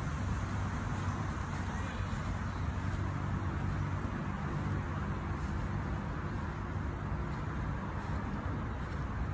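Steady low rumble and hiss of distant road traffic.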